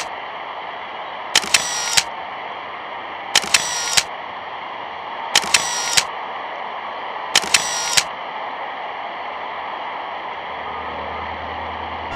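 Steady hiss of an old film soundtrack. A short burst of three sharp clicks repeats every two seconds, five times, and a low hum comes in near the end.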